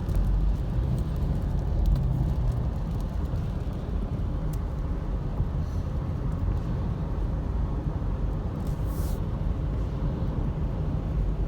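Steady low road and engine rumble heard from inside a moving car, with a brief hiss about nine seconds in.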